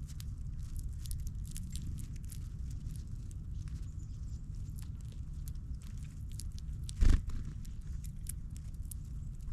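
Birds pecking and cracking seeds close to the microphone: many small sharp clicks and crunches over a steady low rumble, with one loud thump about seven seconds in.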